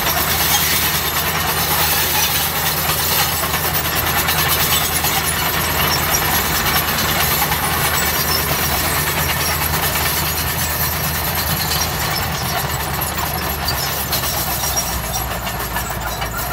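Bulldozer's diesel engine running steadily, with a continuous metallic clatter over it.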